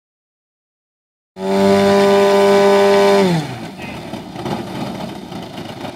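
Engine of a giant-scale Extra 330SC model aerobatic plane on the ground, held at high revs with a steady tone, then throttled back with a quick fall in pitch about three seconds in to a rougher, uneven idle. It starts suddenly out of silence about a second and a half in.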